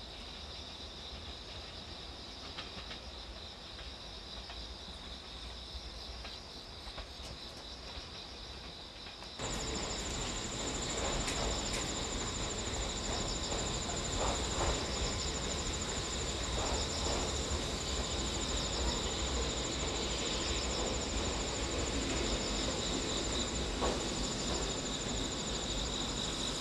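Insects trilling steadily and shrilly over a low outdoor rumble. About nine seconds in, the sound jumps louder and a higher-pitched insect trill joins in.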